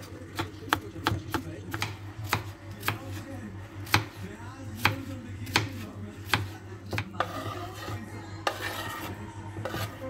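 A knife chopping on a cutting board, about three strokes a second, then a few seconds of scraping near the end.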